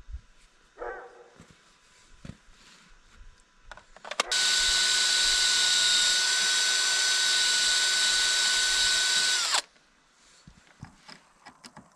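Cordless drill run at a steady, high-pitched speed against a wooden carving for about five seconds, starting abruptly about four seconds in and cutting off sharply.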